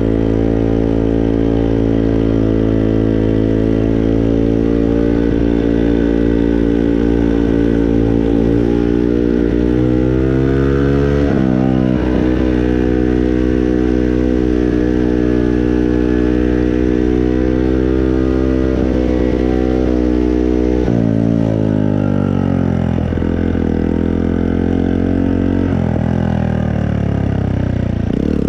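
Small moped engine running continuously, its pitch holding steady for long stretches and then rising and dropping sharply several times as the throttle is opened and closed.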